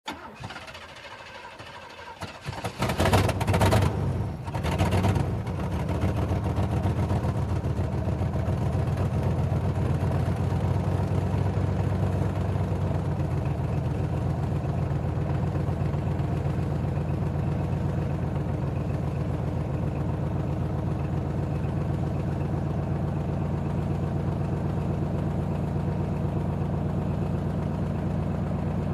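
Old car engine starting: it catches with a few loud revs between about three and five seconds in, then settles into a steady idle.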